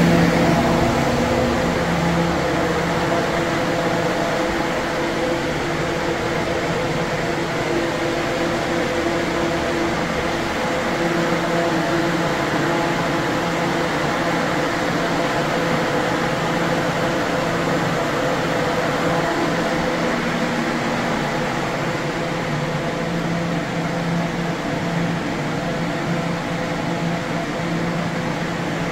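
Steady low hum with a few held tones underneath a constant hiss: the background drone of an indoor bee wintering room.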